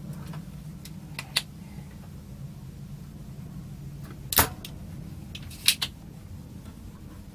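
Sharp clicks and knocks of tools against a circuit board while desoldering, the loudest about four seconds in, over a steady low hum.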